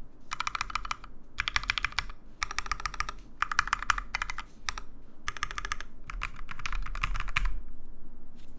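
Custom mechanical keyboard, built with lubed and filmed switches and PBT XDA keycaps, being typed on in quick bursts of keystrokes with short pauses between them. The typing stops about a second before the end.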